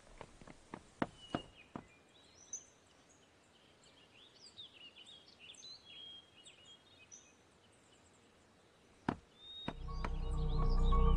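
Quiet outdoor ambience: a few footsteps in the first second or so, then faint birds chirping for several seconds. A single sharp click comes about nine seconds in, and music swells in near the end.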